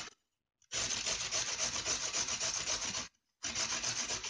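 Carrot being grated by hand on the coarse side of a metal box grater: a rapid rasping of quick strokes, in two spells broken by short pauses.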